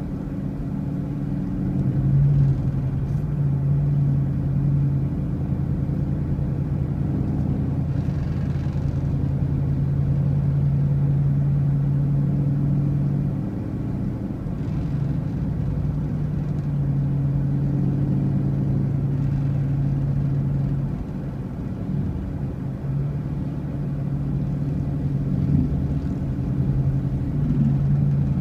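A motor vehicle's engine running steadily on the road, a low hum whose pitch and level dip and come back a few times.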